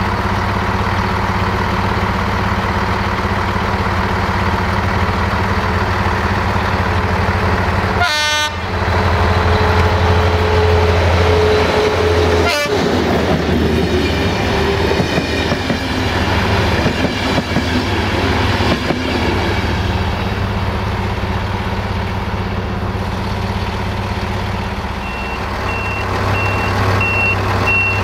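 A Romanian CFR LDH diesel-hydraulic locomotive hauling a passenger train: its engine hums steadily as it approaches, and a horn sounds about nine seconds in. Then the coaches rattle past on the rails. Near the end a high beep repeats at an even pace.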